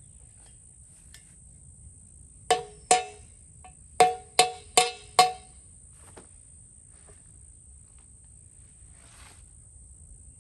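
Six hammer blows on a steel VW Beetle rear trailing arm, two and then four in quick succession, each with a short metallic ring, knocking a part loose during disassembly. A steady high insect trill runs underneath.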